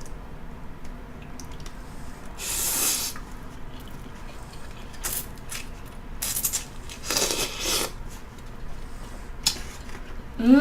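Ramen noodles being slurped in several bursts, with wet chewing and the occasional clink of a utensil against the bowl.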